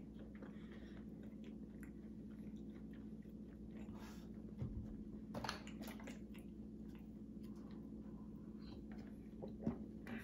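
A man chewing a mouthful of waffle spread with peanut butter: soft, faint, sticky chewing clicks, a little louder in a few moments, over a low steady room hum.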